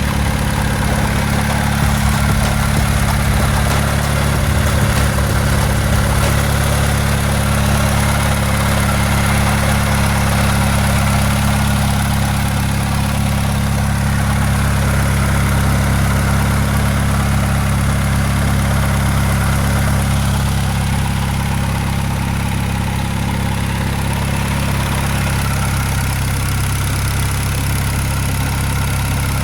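Turbocharged Honda D16Z6 1.6-litre four-cylinder engine idling steadily while it warms up, a little quieter over the last third.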